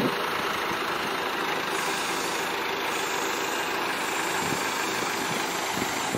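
Diesel truck engine idling steadily.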